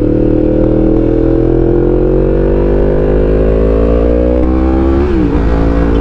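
A 2019 Yamaha MT-10's crossplane CP4 inline-four, with its uneven firing order and an Akrapovic exhaust, pulls under acceleration, its pitch rising slowly. About five seconds in the pitch drops sharply as the bike shifts up a gear, then it pulls again.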